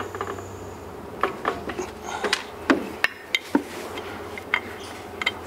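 Irregular light clicks and taps, about eight in all, of metal parts and hand tools being handled as a flyweight is bolted into a Polaris RZR's primary clutch. A faint steady hum lies underneath.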